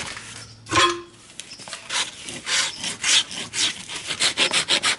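Farrier's hoof rasp scraping the outer wall of a horse's hoof in repeated strokes that quicken to several a second toward the end: dressing off flaking horn to prepare the hoof for a glued-on shoe.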